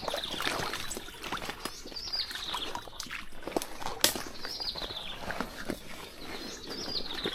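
A bird repeating a short, high call that falls in pitch, about once every one to two seconds, over a steady hiss of rain with scattered sharp taps.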